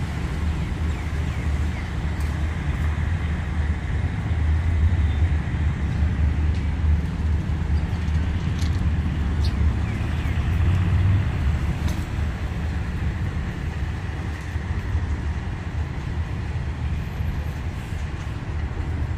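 Diesel railcar engine running steadily as the railcar pulls away along the track, a low, even sound throughout, with a few faint ticks above it.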